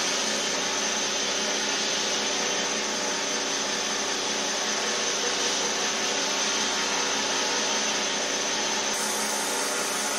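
Belt grinder motor running steadily with a hum, its abrasive belt hissing against a steel sword blade being ground; the hiss gets brighter near the end.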